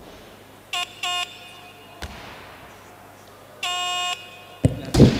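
Electronic beeps from a weightlifting competition's signal system: two short beeps about a second in, then a longer beep as the lifter holds the barbell overhead, the down signal for a good snatch. The barbell then drops onto the platform with a loud thud near the end, followed by crowd noise.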